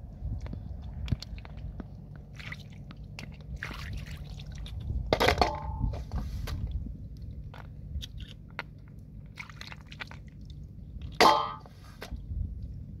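Hands rummaging in shallow water and mud, with small splashes, squelches and light clicks of snail and clam shells. Twice, about five and eleven seconds in, a catch is dropped into a metal bowl with a ringing clank, the second louder. A steady low rumble runs underneath.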